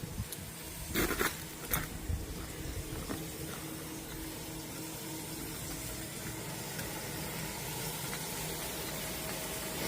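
Black pork grilling over an oak wood and charcoal fire: a steady hissing sizzle with a few sharp pops about a second in.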